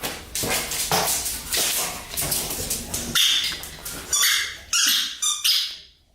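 Dog chewing and mouthing a squeaky rubber ball: a run of short, scrappy chomps with high squeaks now and then from the toy's squeaker.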